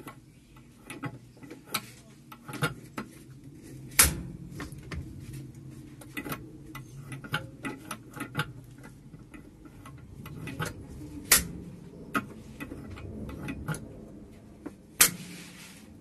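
Irregular light clicks and a few sharper knocks from handling metal parts under a washing machine, around the transmission and belt pulley, over a low steady hum. The loudest knocks come about a quarter of the way in, about two-thirds of the way in and near the end.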